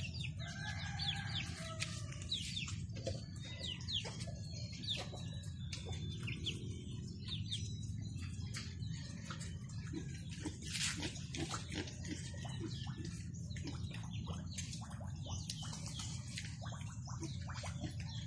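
Pigs in a pen snuffling and grunting, with small birds chirping repeatedly, mostly in the first few seconds. A run of short clicks and knocks comes in the second half.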